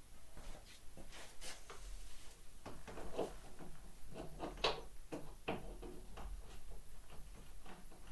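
Irregular clicks, clinks and knocks of hand tools and metal parts being handled, with the strongest knocks a little past the middle.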